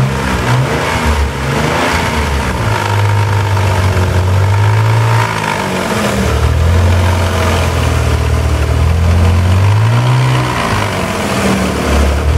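Naturally aspirated Nissan 300ZX (Z32) 3.0-litre VG30DE V6 engine running and being revved up and let back down a few times. The engine carries an odd noise that the owner likens to paper held against a spinning pedestal fan.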